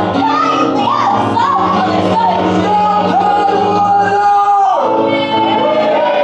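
Music with a voice singing a melody over sustained low chords; the low chord stops about three quarters of the way through and the melody carries on.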